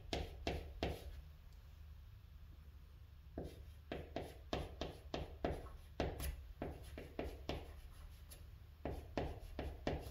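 White chalk writing on a green chalkboard: quick short strokes that tap and scrape against the board, in bursts with two short pauses. A steady low hum sits underneath.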